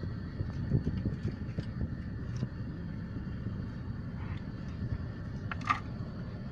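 Car cabin noise while driving: a steady low road and engine rumble, with a few brief knocks, the sharpest near the end.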